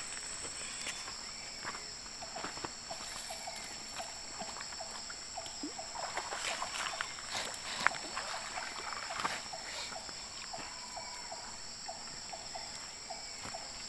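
Light clicks and rustles of a nylon gill net and pebbles as fish are picked out of it, over a steady high insect drone. From about halfway on, a short animal call repeats about three times a second.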